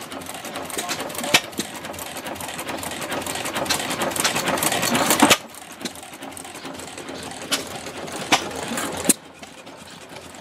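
Antique stationary gas engines of the flywheel, hopper-cooled kind running, a busy mechanical clatter with sharp pops scattered irregularly through it. The clatter drops quieter about halfway through and again near the end.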